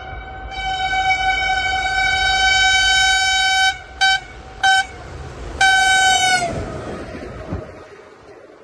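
Diesel locomotive's air horn: long steady blasts, two short toots, then a final blast whose pitch sags as it stops. Underneath, the train's rumble fades away over the last couple of seconds.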